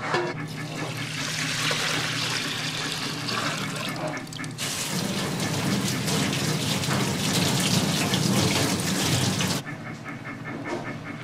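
Kitchen tap running onto a sheet of kelp (kombu) being rinsed by hand, the water splashing into a stainless-steel sink; it comes in loud about five seconds in and stops suddenly near ten seconds. Before it there is a softer, steady rushing noise.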